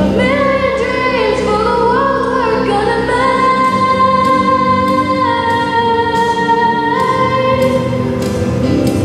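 Music with a singing voice: a sung melody that glides between notes, then holds long notes over a steady, sustained accompaniment.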